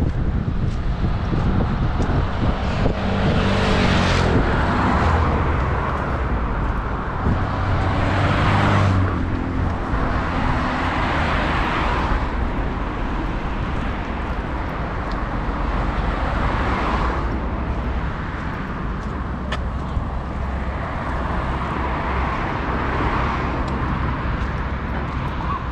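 Road traffic: several cars passing one after another, their noise swelling and fading every few seconds over a steady traffic hum.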